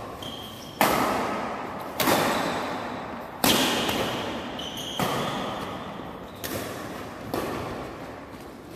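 Badminton rackets striking a shuttlecock during a fast rally, six sharp hits about one to one and a half seconds apart, each echoing in a large hall.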